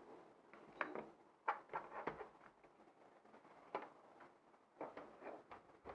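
Faint irregular clicks and taps from a small plastic toy drone being handled, about eight in all.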